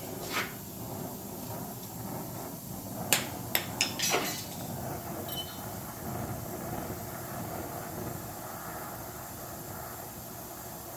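A few sharp metallic clinks from the soldered brass work and tools being handled, four in quick succession about three to four seconds in, over a steady low rushing background.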